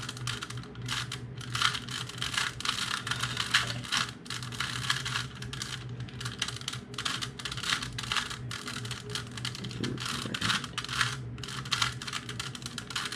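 Rubik's Cube being twisted by hand: a quick, irregular run of plastic clicks and rattles as the layers turn, with no pauses.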